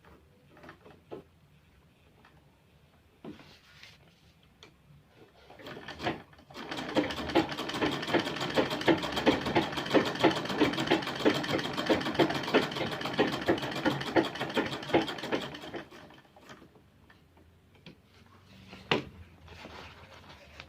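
Pfaff sewing machine stitching in a fast, even rhythm for about nine seconds, starting a few seconds in and stopping near the end. Light clicks and handling knocks come before and after, with one sharper knock near the end.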